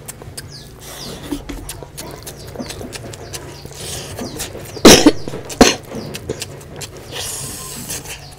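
Close-up eating sounds of rice and oily mutton fat curry eaten by hand: wet chewing and lip-smacking with many small clicks, and fingers squelching through the rice. A loud sudden mouth sound comes about five seconds in, with a shorter sharp one just after.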